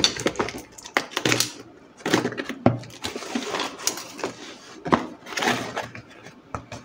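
Paper wrapping and cellotape being cut and torn off a cardboard parcel: irregular rustling and ripping with scattered sharp clicks and knocks.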